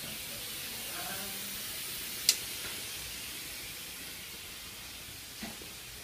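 Steady hiss of steam escaping from a narrow-gauge steam locomotive standing in steam. About two seconds in there is one sharp metallic click.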